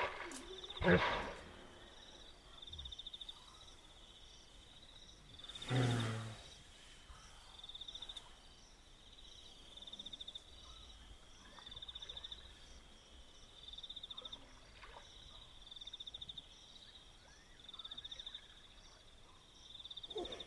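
Night ambience: a high, pulsing trill repeats about every two seconds, while a hippopotamus gives short grunts, one about a second in and another around six seconds with a deep low note.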